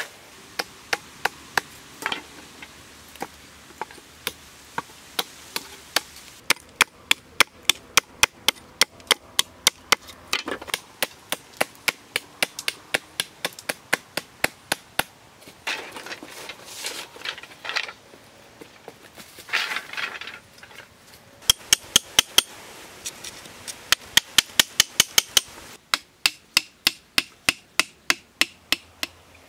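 A blade chopping and trimming wooden poles: sharp wooden knocks in long, even runs of about two to five strokes a second, with brief rustling as the poles are handled.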